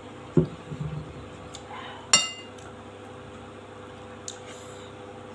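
A cup set down on a wooden table with a dull thump, then about two seconds in a ringing clink of metal cutlery striking a glass plate.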